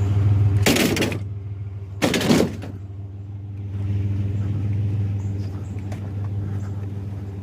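Pickup truck engine idling steadily while scrap in the truck bed is knocked around, with two loud crashes a little over a second apart near the start.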